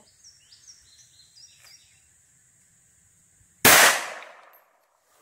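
One loud, sharp pistol shot from a Kel-Tec P-32 .32 ACP pocket pistol about three and a half seconds in, its report echoing and fading over about a second.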